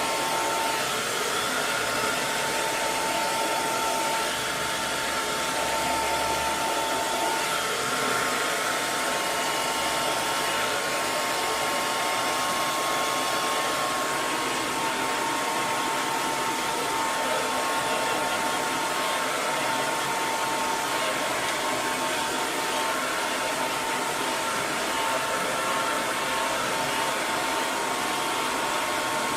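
Electric hair dryer running continuously: a steady, even blowing hiss with a faint motor whine, with no change in speed.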